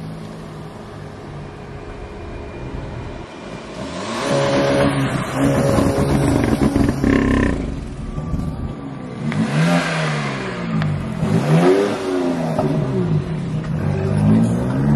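A car engine revving. From about four seconds in it runs louder and steadier, then from about nine seconds it is blipped three or four times, each rev climbing and falling in pitch.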